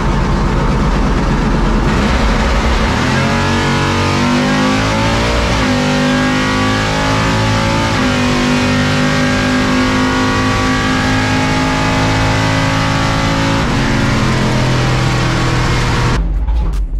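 700 hp C10 pickup drag truck's engine heard from inside the cab: a heavy low rumble at the line, then a full-throttle launch about three seconds in, its pitch climbing through the gears with steps at the shifts, before the throttle comes off near the end of the quarter-mile pass.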